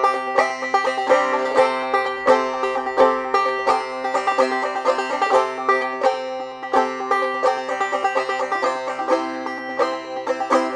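Five-string banjo played clawhammer style, an old-time tune picked at a steady, driving rhythm with ringing drone notes.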